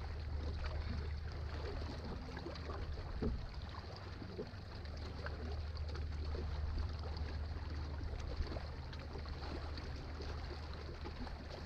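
Steady low rumble of wind and lake water around a bass boat, with scattered light clicks and knocks.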